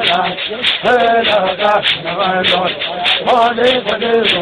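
Voices singing a dance song, backed by sharp rattling strikes that keep a beat about three times a second.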